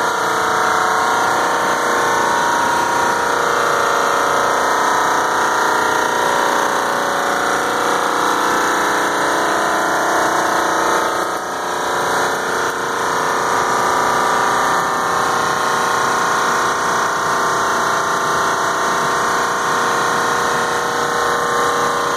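Large 100-ton commercial air-conditioning equipment running: a loud, steady mechanical drone with several held tones, from the big compressors and air handler in the mechanical room.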